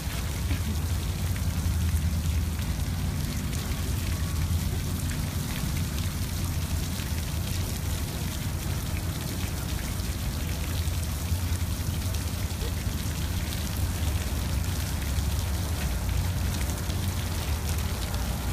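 Water sprinkler spraying, its droplets pattering steadily on the ground, over a steady low rumble.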